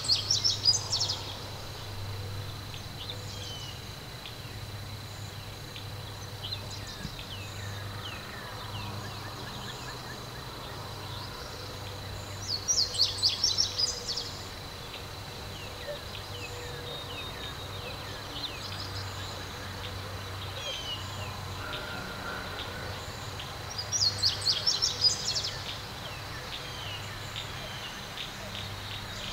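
Small wild birds singing: one bird repeats a short, rapid, high song three times, about twelve seconds apart, with scattered faint chirps from other birds between, over steady low background noise.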